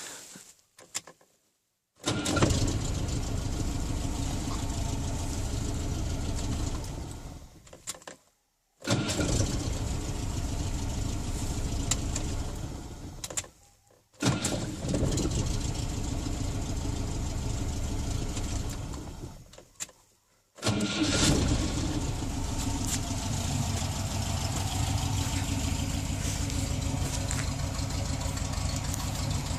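Moskvich car's four-cylinder engine starting and running; the sound starts up four times, the first three runs falling away after about five seconds each, the last running steadily to the end.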